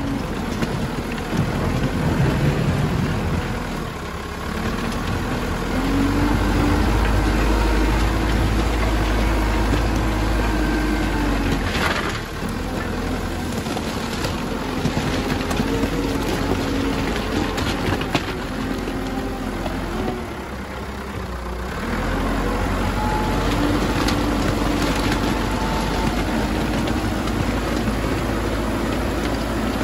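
Backhoe loader's diesel engine running as the machine drives over crushed stone, the engine note rising and dropping a few times.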